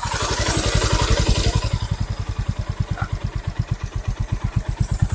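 Motorcycle engine running in first gear as the clutch is slowly let out: its firing beat slows a little and the engine labours, pulling down under the load as power goes to the rear wheel.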